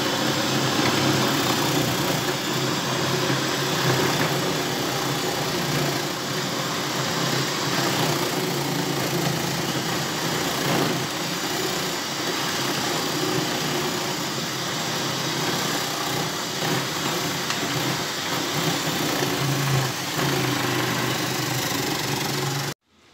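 Electric food processor's motor running steadily as carrots are pushed down the feed tube and grated. It cuts off suddenly near the end.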